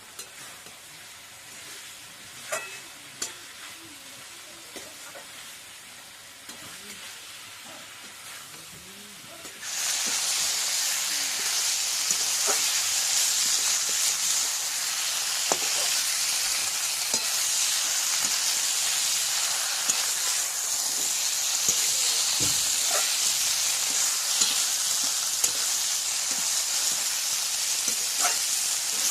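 Food frying in hot oil in a pan, with a utensil clicking against it now and then. A few quiet clicks come first; about ten seconds in, a loud steady sizzle starts suddenly and runs on.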